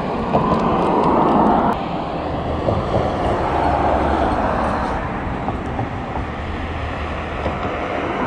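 Road traffic passing close by: a steady rush of car tyres and engines, louder for a moment in the first couple of seconds, with a low engine hum through the middle.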